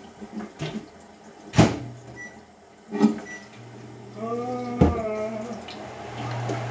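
Dishes and glassware knocking at a kitchen sink during dishwashing: three sharp knocks, with a steady low hum coming in about halfway.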